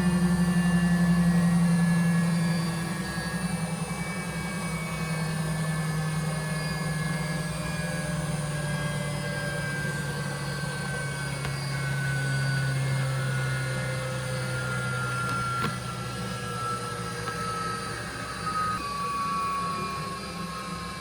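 Beko WSPE6H616W washing machine running its service test, the drum motor's whine falling slowly and steadily in pitch as the drum slows down. It is a little quieter from about two seconds in.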